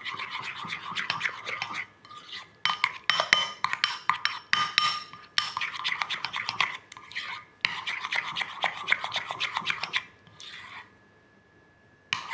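A spoon briskly stirring a thick tahini sauce in a bowl, making rapid scraping and clicking against the bowl. It comes in spells of two to three seconds with short breaks, and stops shortly before the end.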